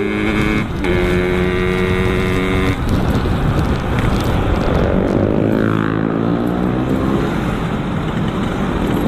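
Yamaha RX-King's two-stroke single-cylinder engine running through a Boban C33 aftermarket exhaust while riding. It holds a steady pitch for the first few seconds with a brief dip about a second in, then the pitch rises and falls around the middle as the throttle changes, over a steady rush of wind and road noise.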